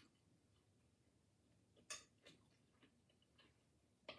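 Faint eating sounds from a whole crispy fried red snapper being pulled apart by hand and chewed: about five short sharp clicks and crackles, the loudest about two seconds in.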